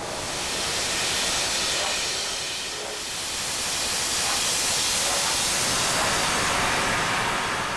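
Kawai PH50 keyboard sounding a noisy preset: a hissing wash of lo-fi synthesized noise, strongest in the highs, that comes in suddenly, dips about three seconds in and swells back.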